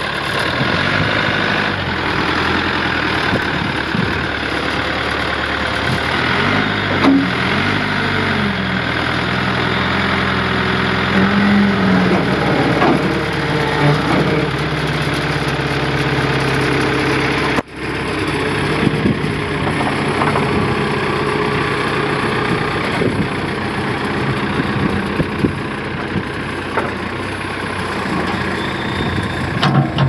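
2001 CAT 420D IT backhoe loader's 4.2 L diesel engine running steadily, its throttle stuck at a higher RPM. The engine note dips and rises at times as the machine works, and the sound breaks off briefly a little past halfway.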